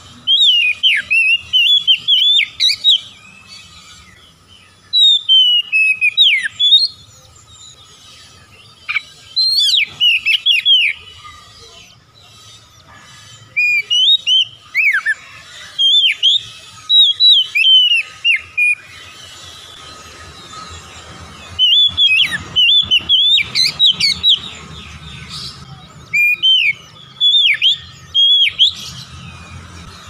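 Oriental magpie-robin (kacer) singing: phrases of loud, sharply swooping whistled notes, each a second or a few long, repeated about eight times with short pauses between.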